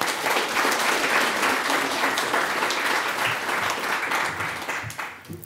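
Audience applauding steadily, then dying away about five seconds in.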